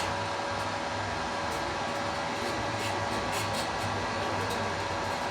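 Welding machine switched on and running: a steady fan-like whir over an electrical hum, with a few faint ticks.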